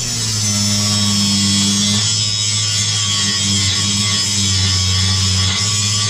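Angle grinder running steadily against steel plate, grinding the edges to a bevel for welding.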